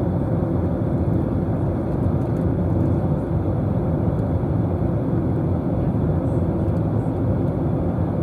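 Steady low cabin noise of a jet airliner in cruise: the engines and the air rushing past the fuselage, heard from a window seat.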